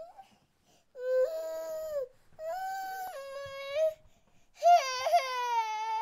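Infant crying: three long, pitched wails, each a second or more, with short pauses for breath between them.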